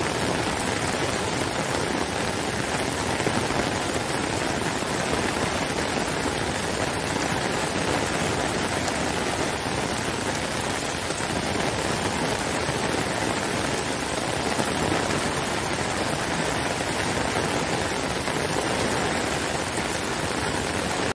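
Heavy rain falling steadily on grass and a wet brick path: a dense, even hiss of rain with no breaks.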